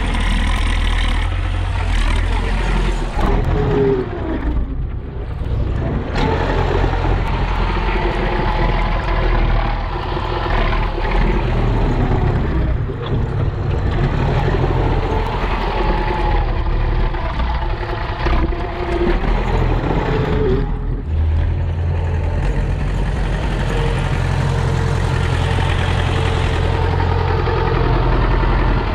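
Belarus MTS-50 tractor's four-cylinder diesel engine running as it pushes snow with a front blade, its revs rising and falling. The sound drops away briefly twice.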